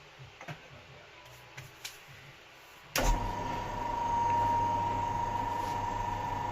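A few light clicks of handling, then about three seconds in a drill press motor switches on and runs at a steady speed with a constant hum and whine.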